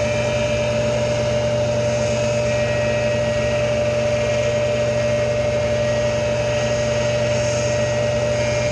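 Tool post grinder running steadily at about 5,000 RPM with a steady whine, its thin wheel spinning free while the dresser is fed toward it a thousandth at a time and has not yet touched the wheel.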